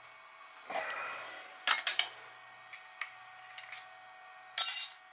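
Metal parts being handled on a workshop bench. There is a scrape about a second in, two sharp clinks just before two seconds, a few lighter taps, and a short loud hiss near the end.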